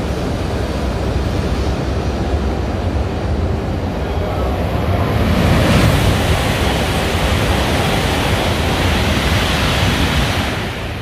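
Coupled E5/E6 Shinkansen passing through the station at high speed, a rushing noise of air and wheels that swells about five seconds in and eases off near the end. Under it runs the steady rumble of an E5 Shinkansen pulling away from the platform.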